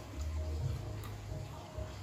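A person chewing a mouthful of food with low, muffled thuds and a few small clicks.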